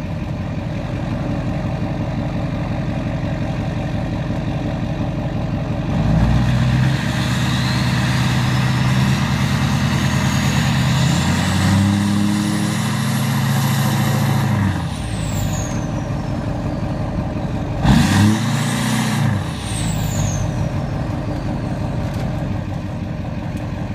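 Straight-piped 2006 Duramax LBZ 6.6-litre V8 turbo-diesel (4-inch straight pipe to a 7-inch tip) idling. About six seconds in it is revved and held up for about nine seconds, with a high turbo whistle climbing as it spools. It drops back to idle as the whistle falls away, then gets a second short blip of the throttle about eighteen seconds in before settling to idle again.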